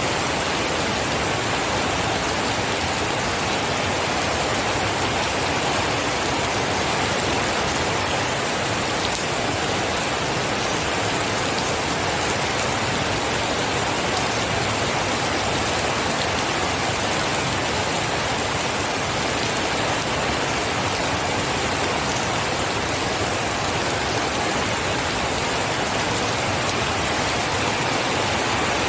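Steady rain falling on a surface, an even hiss of many drops with no change in strength.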